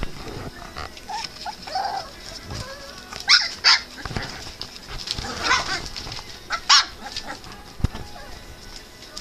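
Young English Shepherd puppies, about three and a half weeks old, yipping and whining as they play. The sharpest yelps come about three and a half seconds in and again near seven seconds, with one short knock soon after.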